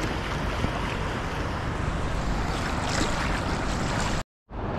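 Steady rush of wind on the microphone mixed with breaking surf and moving water, cutting out abruptly for a moment near the end.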